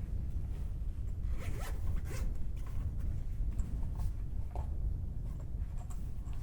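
Zipper pulled in several short quick strokes, over a steady low rumble.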